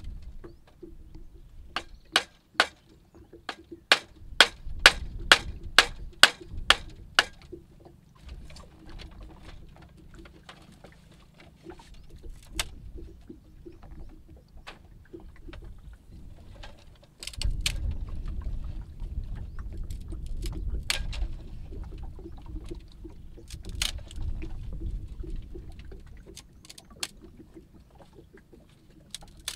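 Blade chopping into bamboo in a quick run of sharp knocks, about three a second, followed by scattered cracks and clicks as bamboo strips are split and worked by hand. A low rumble comes in suddenly about halfway through.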